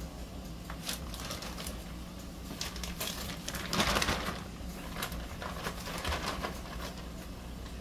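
A plastic bag crinkling and rustling as it is handled and opened, with a louder burst of crinkling about four seconds in. A steady low hum runs underneath.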